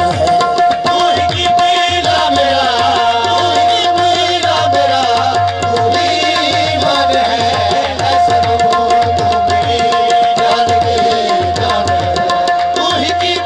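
Qawwali music without vocals: harmonium playing a wavering melody over a long held note, with a steady tabla beat underneath.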